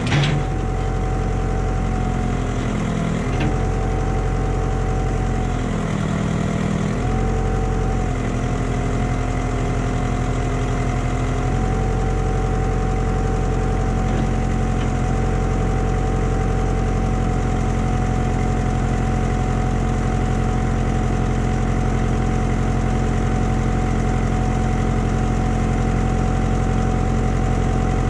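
Backhoe's diesel engine running as its hydraulic arm lifts and swings a load. The engine note shifts briefly a few times in the first twelve seconds or so, then holds steady.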